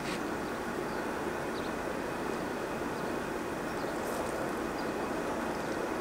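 Propane burner running steadily under a large stainless pot of boiling water, a constant rushing noise that does not change, with a few faint ticks.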